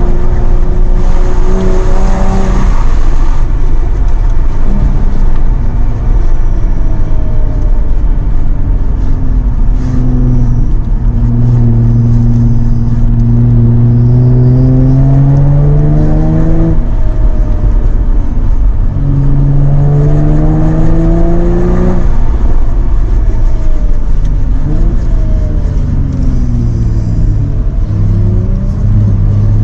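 Jaguar F-Type engine accelerating hard through the gears: each long pull rises steadily in pitch, then drops sharply at the upshift, twice in the middle. Near the end come several shorter, quicker rises and falls, over a steady low road rumble.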